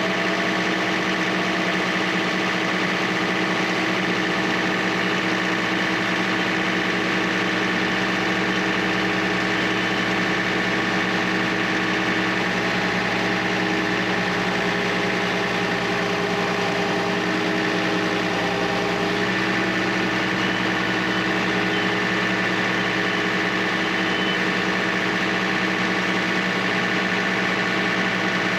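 Wood-Mizer LT15 sawmill's engine running steadily at a constant speed, just after starting.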